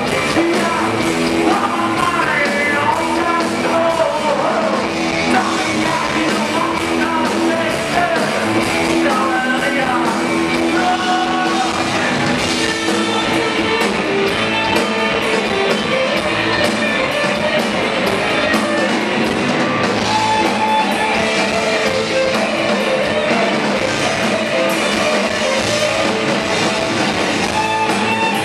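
Rock band playing live: electric guitars and drums with a male voice singing lead.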